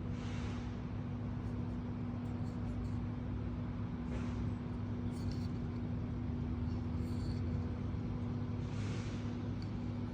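Steady low background hum, with three soft swishes and a few faint clicks.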